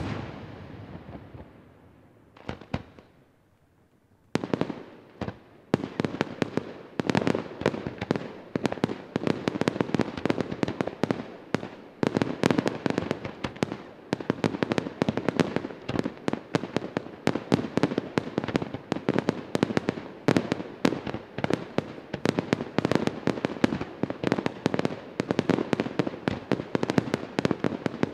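Aerial firework shells bursting: the echo of one large burst fades away over the first couple of seconds, then a lone pop. From about four seconds in, a rapid barrage of sharp firework bangs follows, several a second, without letup.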